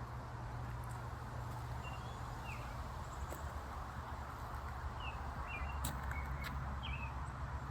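Outdoor ambience: a steady low rumble of distant traffic, with a scattering of short, high bird chirps, most of them in the second half.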